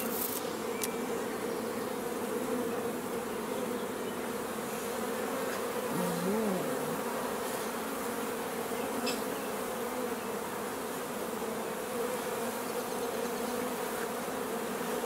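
Honeybee colony buzzing steadily from an open hive. About six seconds in, a single bee's buzz briefly rises and falls in pitch. There is a light knock right at the start.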